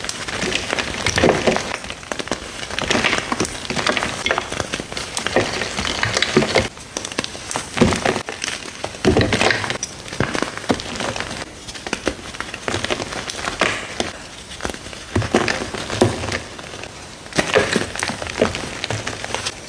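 Gritty crackling and scraping of concrete being mixed, an uneven run of many small clicks rising and falling in loudness.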